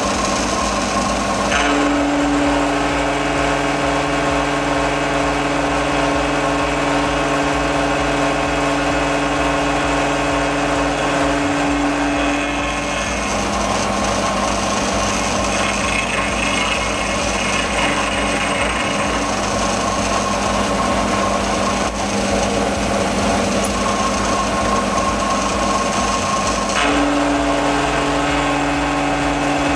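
Vertical milling machine running steadily while its milling cutter takes a cut across an aluminium block. The machine's pitch shifts a few times.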